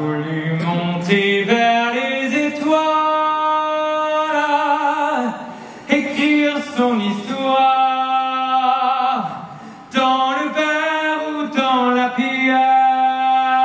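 A man singing solo and unaccompanied in long held notes. The first phrase climbs in pitch, and there are two short pauses for breath between the phrases.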